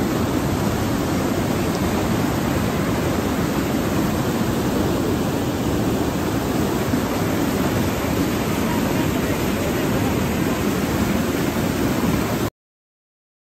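Steady rushing roar of the Njupeskär waterfall, even and unbroken, cutting off suddenly near the end.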